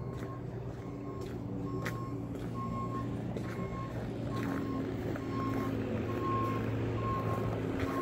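A vehicle's reversing alarm beeping steadily, about twice a second, over the steady running of an idling engine.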